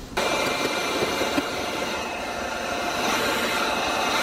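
Handheld heat gun switched on a fraction of a second in, then running steadily: an even rush of blown air with a few steady motor tones, used to heat-set tint film onto a headlight lens.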